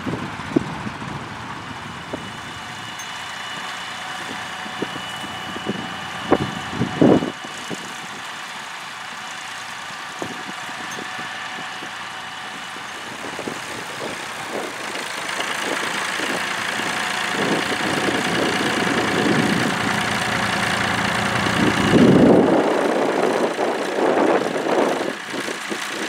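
A David Brown tractor's engine running steadily under load while pulling a mounted plough. It grows louder over the second half as the tractor comes close, and a few short bumps sound in the first seven seconds.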